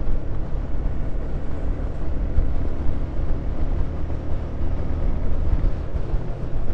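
Wind buffeting the microphone over the steady running of a Yamaha FZ motorcycle cruising at road speed.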